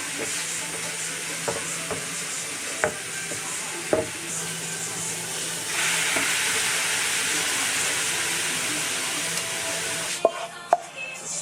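Food sizzling in a frying pan while being stirred, with occasional sharp taps of a utensil against the pan. The sizzle grows louder about six seconds in and cuts off abruptly near the end, leaving a few sharp clicks.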